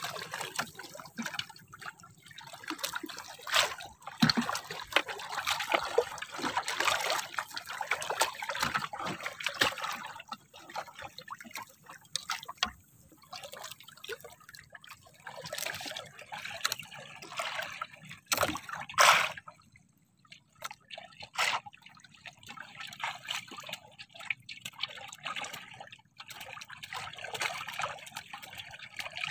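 Sea water lapping, trickling and splashing against the hull of a small outrigger boat, in an uneven patter. A few sharp knocks come about two-thirds of the way through.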